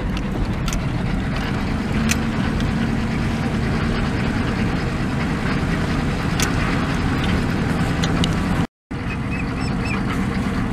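Steady rumble of a vehicle driving slowly on a rough dirt road, heard from inside the cab: engine hum and tyre noise with scattered clicks and rattles. The sound cuts out for a moment about nine seconds in.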